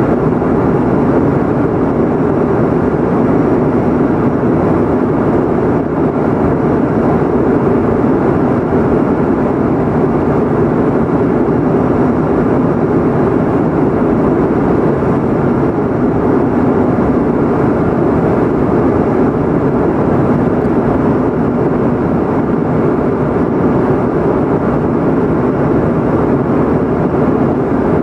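Steady airliner cabin noise in flight, heard from inside the cabin: an even, unbroken rush of engine and airflow noise, deep and full, with no changes.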